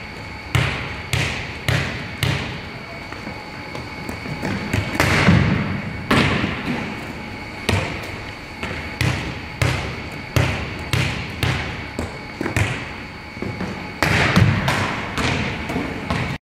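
Volleyball thudding off hands and bouncing on a hardwood gym floor, a string of sharp impacts, at times about two a second, each echoing through the large hall.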